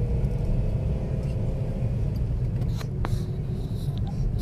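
Steady road and engine rumble heard inside a moving car's cabin, with a single click about three seconds in.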